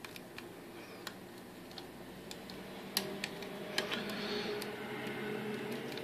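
Faint, irregular metallic ticks and clicks of a hook pick lifting pins in a BKS rim cylinder held under tension, with a sharper click about three seconds in.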